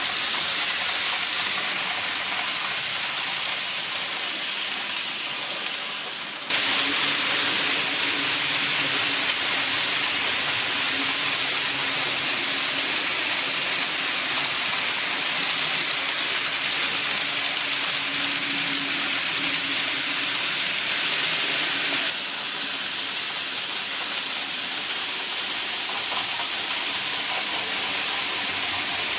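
Model trains running on a layout: a steady hissing rush of wheels rolling on the track with a faint motor hum, louder from about six seconds in until about twenty-two seconds in.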